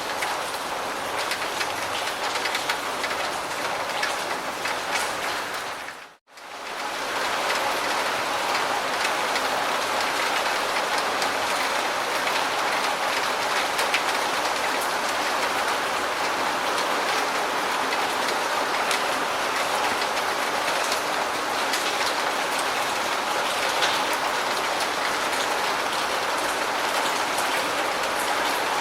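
Steady rain falling on a surface, an even hiss of drops. About six seconds in it fades to silence for a moment, then comes back as a steadier, denser downpour.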